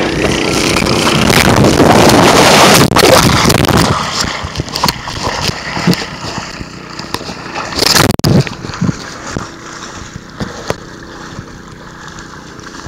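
A loud rush of water and wind on a body-worn camera's microphone during a slide down a wet plastic slide, loudest for a couple of seconds early on, then irregular splashing through muddy water with a second loud splash about eight seconds in.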